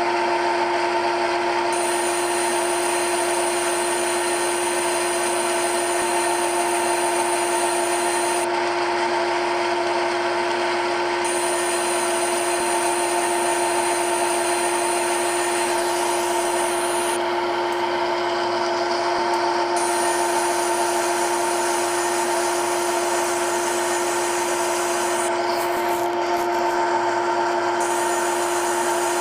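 Simulated CNC lathe machining sound from a lathe simulator app, running while the turning tool roughs down the spinning workpiece. It is a steady hum with a few constant pitches over a hiss, and the highest hiss drops out briefly about three times.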